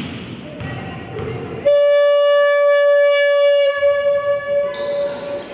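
Basketball scoreboard horn sounding one long steady blast, starting a little under two seconds in, holding for about two seconds, then trailing off more quietly.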